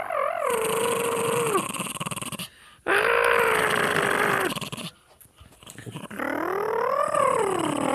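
Small long-haired dog giving long, drawn-out growl-howls: three held calls, the first wavering and ending about one and a half seconds in, the second level, and the third rising then falling near the end.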